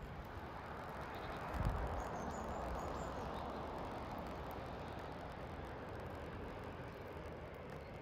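Outdoor rushing noise that swells over the first few seconds and slowly fades, with a low thump about a second and a half in. Faint high chirps of small birds come around two to three seconds in.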